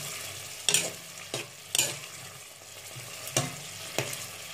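A utensil stirring diced potatoes and tomatoes in a metal pot, knocking and scraping against the pot several times, over the steady sizzle of the vegetables simmering in oil and boiling water.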